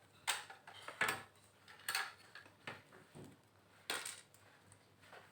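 Small plastic board-game pieces clicking and tapping against the plastic game board, a series of sharp clicks about once a second.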